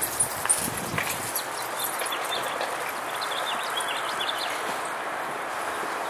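Small birds chirping a few times over a steady outdoor rush of background noise, with a few sharp knocks in the first second.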